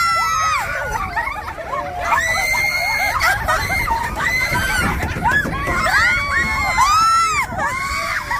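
A group of riders on a swinging Viking ship ride screaming together, many overlapping high-pitched screams that rise and fall in pitch.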